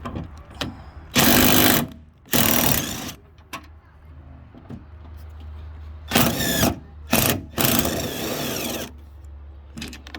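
Power tool spinning in five short bursts, loosening the 10 mm bolts of a trunk-lid hinge: two bursts early on, then three more close together.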